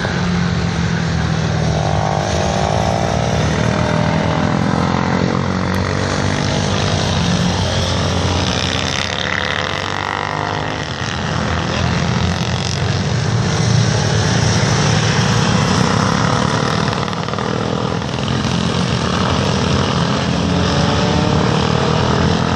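Several racing motorcycles lapping a circuit, their engines continuously rising and falling in pitch as the riders accelerate and back off through the bends.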